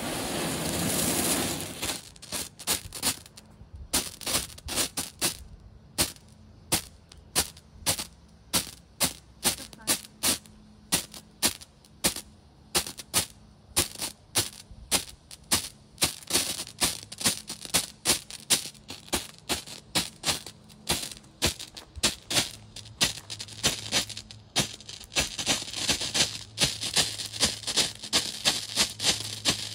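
Daytime ground strobe firework going off: a burst of hissing as it lights, then a long irregular run of sharp strobe pops, two or three a second, with a hiss building between the pops near the end.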